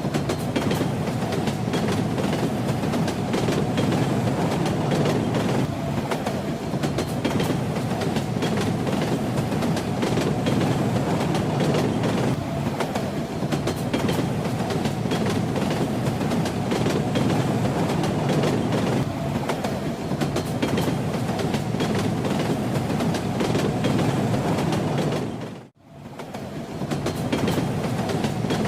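Train running steadily, a dense rumble with the clickety-clack of wheels over rail joints. About 26 seconds in, the sound briefly fades out to near silence and then fades straight back in.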